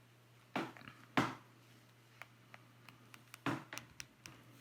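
Scattered short clicks and knocks of hard plastic and small tools being handled, about six in a few seconds, over a faint low steady hum.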